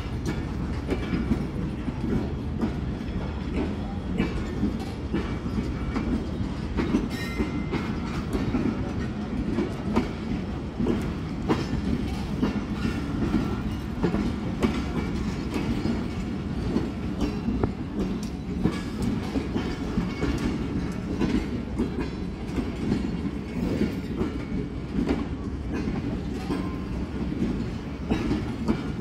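Passenger coaches of a Pakistan Railways train rolling past, their wheels clicking over the rail joints over a steady low rumble.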